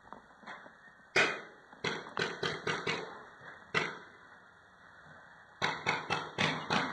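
Paintball marker shots, sharp pops in quick runs: one loud shot about a second in, five fast shots, another single, then five more near the end.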